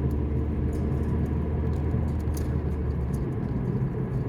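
Car interior road noise while driving: a steady low rumble of engine and tyres heard from inside the cabin, its deepest part dropping away about three seconds in.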